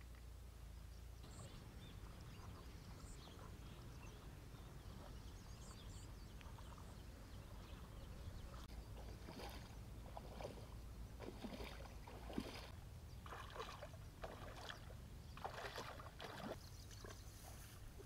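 Splashing steps of someone wading through shallow paddy water, irregular and growing louder from about halfway in, over a low wind rumble.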